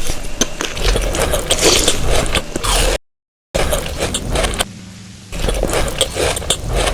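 Close-miked eating sounds: dense crackling and crunching as food is bitten and handled. The sound cuts out completely for about half a second about three seconds in, then goes on.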